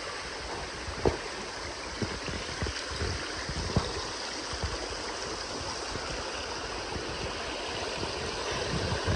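Creek water rushing steadily out of a pond through a freshly breached beaver dam. A couple of short, sharp knocks about one and four seconds in.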